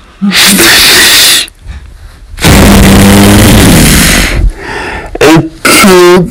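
A person screaming in loud, distorted blasts with the recording clipping: a long scream, a longer one after a short gap, then two short yells near the end.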